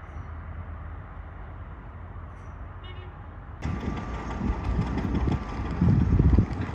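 Outdoor railway station ambience: a low, steady rumble that becomes louder and gustier about three and a half seconds in.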